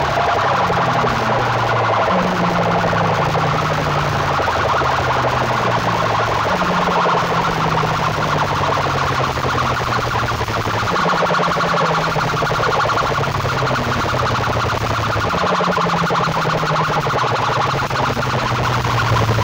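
Banks of aluminium horn loudspeakers on rival sound-system rigs blaring at full volume, a dense, loud wall of sound over low held tones that step up and down in pitch every second or two.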